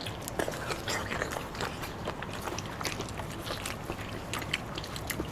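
Close-miked eating: a steady run of small clicks and smacks from biting and chewing food.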